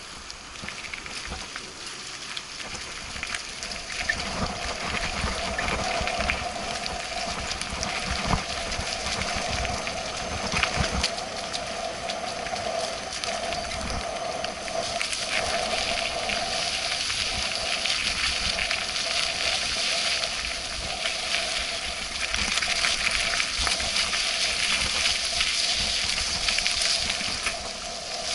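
Mountain bike riding over a rough rocky dirt trail and then a smoother paved path: steady tyre rumble and wind noise on the microphone, with frequent small knocks and rattles from the bike.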